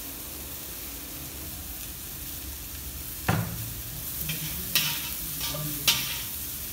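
Diced potatoes and ridge gourd sizzling as they fry in ghee in a brass wok. From about three seconds in, a metal spatula stirs them, with three sharp clacks of metal on the wok.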